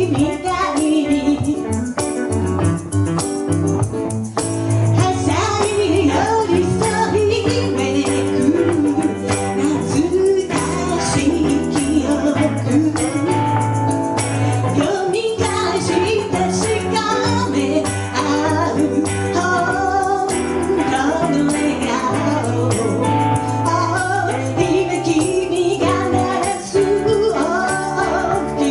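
A song with singing over instrumental accompaniment and steady, held low bass notes.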